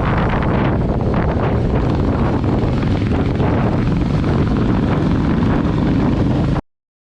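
Wind buffeting the microphone on a moving motorcycle, with a Royal Enfield Classic 350's single-cylinder engine running underneath. It cuts off suddenly near the end.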